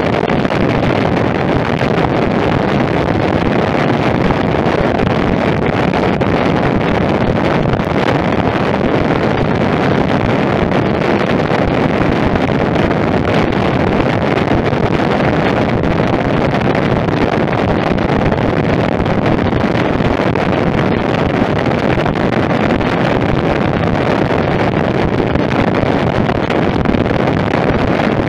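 Steady wind rush over the microphone of a motorcycle at cruising speed, with the running of the Royal Enfield Meteor 350's single-cylinder engine underneath.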